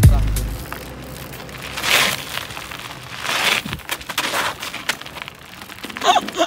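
Mountain bike tyres rolling and crunching over loose dirt, a rough hiss that swells twice. A short breath or voice sound comes near the end.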